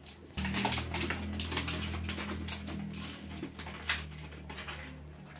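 Indian spitz dog chewing and tearing a scrap of paper: a run of crisp crackles and clicks. Under it runs a steady low hum that starts about half a second in and fades near the end.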